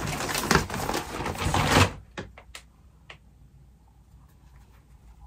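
A stack of printed paper prints rustling as they are handled for about two seconds, followed by a few light clicks.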